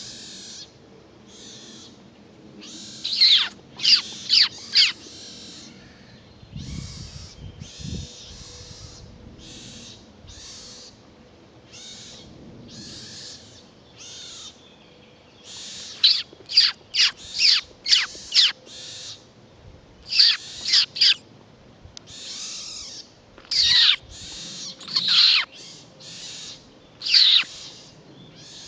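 High-pitched animal calls: many short hissy squeaks, and clusters of three or four quick, steeply falling whistle-like calls, repeated on and off. A brief low rumble comes about seven seconds in.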